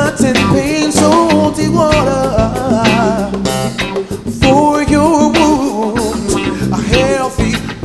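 A rock band playing live, with electric guitar, bass guitar and drums, under a sustained, wavering melody line.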